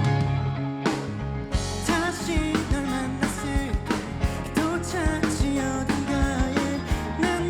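A rock band playing a song, with a lead vocal singing a melody over drums and guitars.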